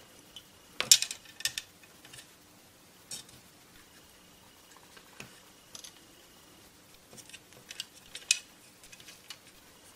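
Plastic multimeter case parts and small plastic jack inserts being handled and set down, giving scattered light clicks and taps. The sharpest click comes about a second in, and a quick run of taps comes near the end.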